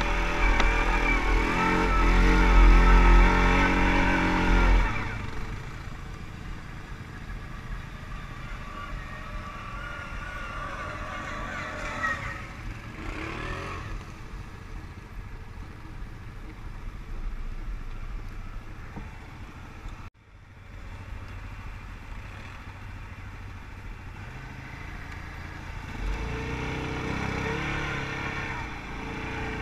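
ATV (quad bike) engine running and revving, loud for the first five seconds, then lower and steadier. The sound drops out for a moment about twenty seconds in and grows louder again near the end.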